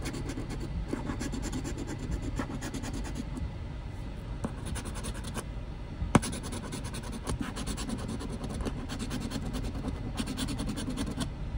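A coin scraping the coating off a lottery scratch-off ticket in rapid back-and-forth strokes, with one sharp click about six seconds in.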